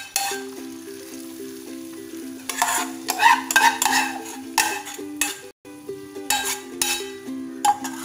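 Hot oil tempering of mustard seeds, onion, dried red chillies and curry leaves poured from a small pan into liquid dal curry, sizzling, with a spoon scraping and clinking against the pan. A soft background melody of held notes plays throughout.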